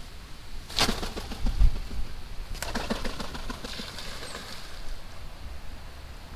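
Muscovy duck taking off from the canal, its wings flapping and splashing the water, in two spells: about a second in and again around three seconds in.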